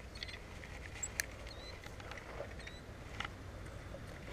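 Faint scattered clicks and ticks from handling a spinning rod and reel, over a steady low rumble, with a few short high chirps.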